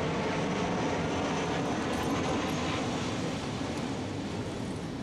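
A motorcycle passing along the road, its engine and tyres a steady rumble that eases off from about three seconds in as it moves away.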